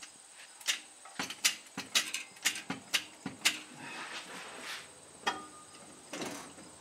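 Irregular sharp clicks and knocks, about two a second for the first three and a half seconds, then a couple more near the end.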